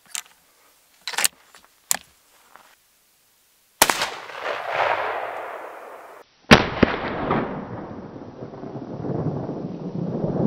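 Two rifle shots from a Mauser 48A bolt-action rifle in 8x57 JS, about two and a half seconds apart, each a sharp crack followed by a long rolling echo. A few short clicks come before the first shot.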